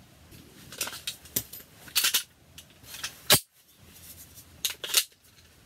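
Faxon FX19 Hellfire pistol being handled: a handful of light metallic clicks, the sharpest about three and a half seconds in.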